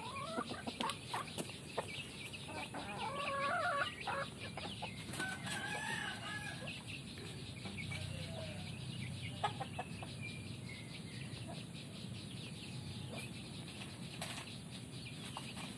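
Bangkok game rooster calling in short clucks, loudest about four seconds in. After about seven seconds the calls mostly stop, leaving scattered clicks.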